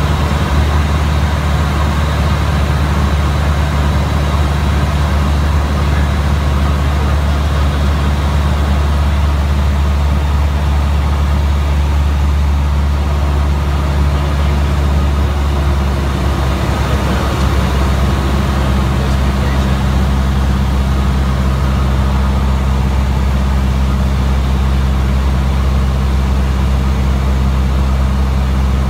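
Single-engine piston airplane's engine and propeller droning steadily, heard inside the cockpit in flight, with a brief shift in pitch about two-thirds of the way through.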